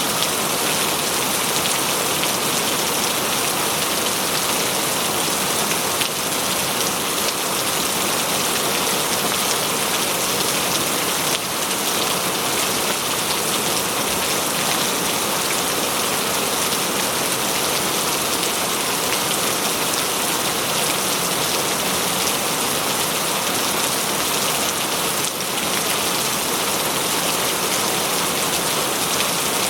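Steady rain falling, a dense even hiss of drops spattering on surfaces.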